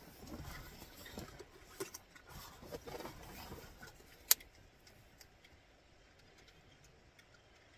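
Light rustling and small handling clicks, with one sharp click about four seconds in, after which it goes quieter.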